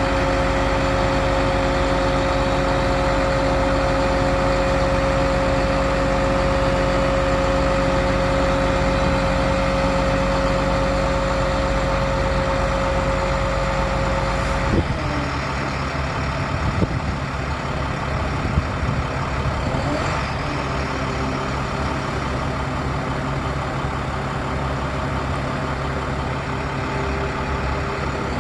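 The bucket truck's International DT466 turbo diesel runs steadily, driving the hydraulics that lower the Altec aerial boom, with a high steady whine over the engine hum. About halfway through the whine cuts off and the engine note drops, as the boom comes to rest. A few light knocks follow.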